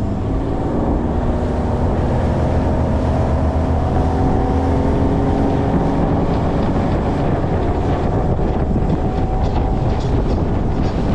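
The outboard motor on a 1975 Venture bass boat running the boat at speed, its pitch climbing over the first few seconds as it accelerates and then holding steady, with wind buffeting the microphone.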